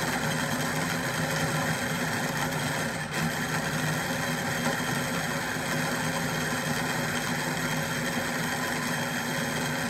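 Small electric food processor (mini chopper) running steadily, chopping raw red onion with no water added.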